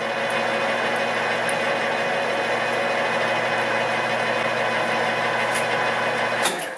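Van Norman No. 6 horizontal milling machine running steadily, a constant motor hum under a noisy spread, then shutting off near the end.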